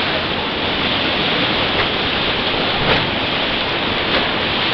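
Loud, steady rush of whitewater rapids around a raft, with a few short, sharper splashes.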